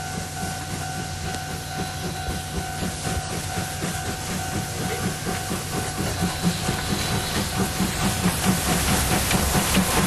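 Dubbed-in steam locomotive sound effect: steady steam hiss with a regular chuffing rhythm that grows louder toward the end, over a steady tone.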